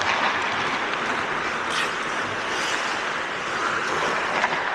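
Ice hockey play: a steady hiss of skates scraping across the ice, with a few sharp clacks.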